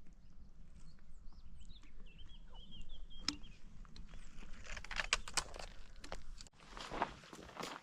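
Footsteps crunching on a rough mountain trail, growing into a steady run of steps in the second half. A small bird chirps briefly a couple of seconds in.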